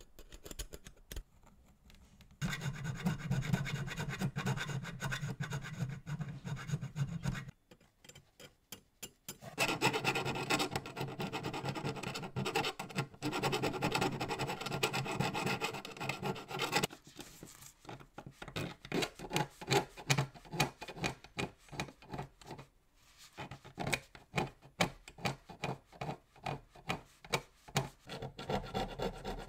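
Hand scraper and needle file scraping and filing the bare die-cast metal body of a model 1956 Ford Thunderbird. Long stretches of steady scraping with short pauses, then in the second half quick back-and-forth file strokes, a few a second.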